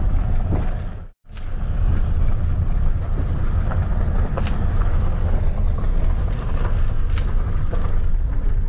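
Car driving along a road, heard from inside the cabin: a steady low rumble of engine and tyre noise, with a brief break in the sound about a second in and a couple of faint sharp ticks.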